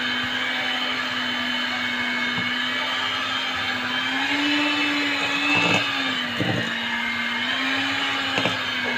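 Hand-held electric mixer running steadily as its beaters work thick cake batter in a stainless steel bowl. Its pitch rises a little about four seconds in and again near the end, with a few short knocks along the way.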